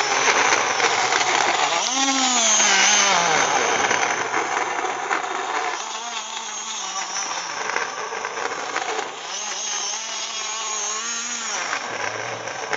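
Small mini blender's motor running loaded with apple chunks, its whine falling and rising again several times as it bogs down and picks back up. It is struggling with pieces of apple too large for it.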